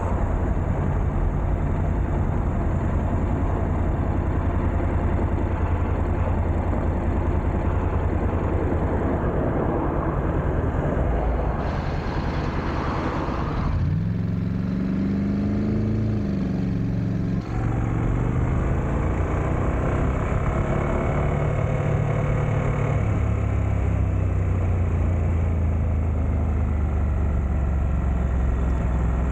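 Motorcycle engine running under way, with wind and road noise. About halfway through the engine note rises and then falls through a turn, with a brief drop just after, before settling back to a steady note.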